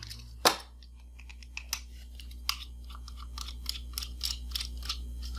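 Small precision screwdriver backing screws out of the plastic housing of a Badger paint mixer: irregular small clicks and ticks, with one sharper click about half a second in.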